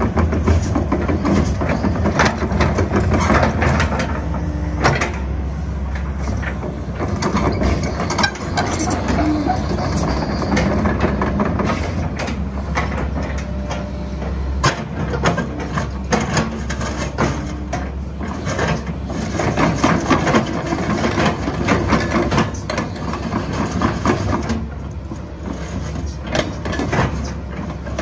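Kobelco SK135SR-3 excavator's diesel engine running steadily while the machine swings and turns on its steel crawler tracks, with frequent irregular metallic clanks from the tracks and undercarriage.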